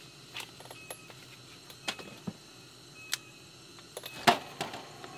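Scattered light clicks and metallic taps of a tin of canned meat and a knife being handled on a camp table, the loudest a sharp knock about four seconds in.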